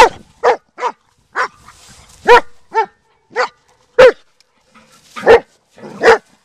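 Black German Shepherd barking, about ten quick, loud barks in irregular bursts.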